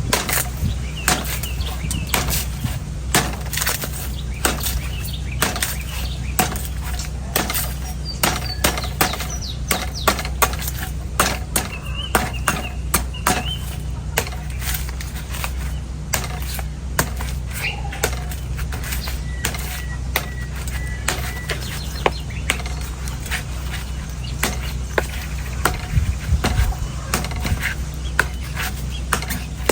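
Sharp knife chopping into the dry, hard husk of an old coconut: many sharp strikes in quick, uneven succession, over a steady low hum.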